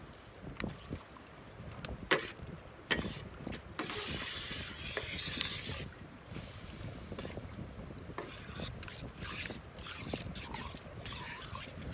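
A metal spoon and spatula stirring rice and broth in a large steel paella pan, the liquid sloshing and the utensil scraping and clinking against the pan. The sharpest clinks come in the first few seconds, the loudest about two seconds in.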